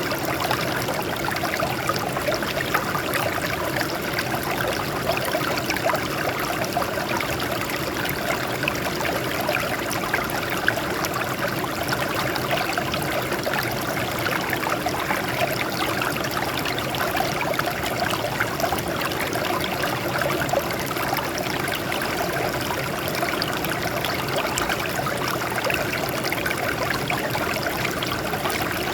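Water running steadily over rocks in a small stream, a continuous splashing and trickling.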